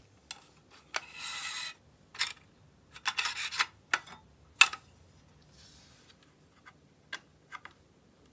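Adhesive fixing tape being peeled off the aluminium parts of a Proxxon TA 300 90° stop in short pulls, with light clicks of the metal parts being handled. The loudest sound is a single sharp knock about four and a half seconds in.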